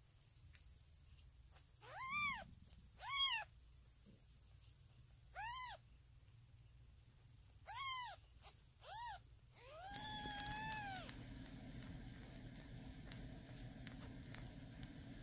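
Newborn kittens mewing while nursing: five short, high squeaks, each rising and falling in pitch, then a longer mew about ten seconds in.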